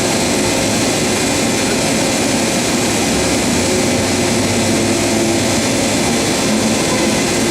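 LeBlond Makino MC1813 CNC horizontal machining center running under power: a steady mechanical rush of noise with a few steady low hum tones, unchanging throughout.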